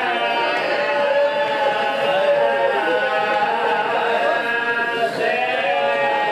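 A man's voice chanting a Muharram lament in a drawn-out sung style through a microphone, with long held notes that slide between pitches.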